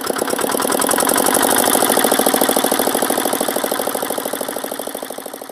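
Kirloskar Comet single-cylinder diesel engine running just after being started following a tappet adjustment, its valve gear open with the rocker cover off: a rapid, even knocking beat that quickens in the first second, then grows quieter toward the end.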